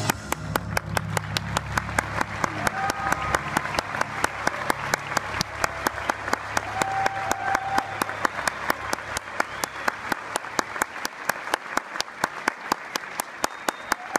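Theatre audience applauding at the end of a song, with one pair of hands clapping close by at about five claps a second. A low held chord fades out under the applause about ten seconds in.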